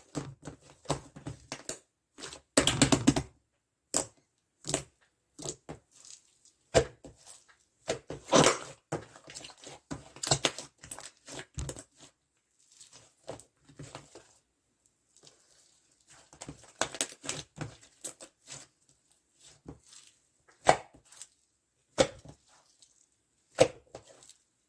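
Soft sky-blue slime being squeezed and pulled by hand: irregular sticky clicks, pops and short crackling squishes, with a few louder runs and quiet gaps between.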